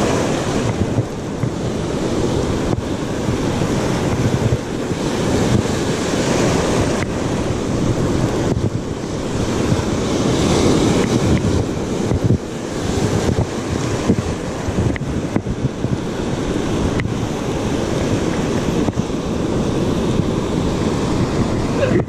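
Ocean surf breaking and washing through the shallows close to the microphone, swelling and easing with each wave, with wind buffeting the microphone.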